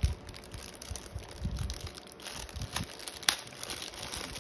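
Thin clear plastic bag crinkling and rustling as hands work it open around a headphone carrying case, with a sharp crackle about three seconds in.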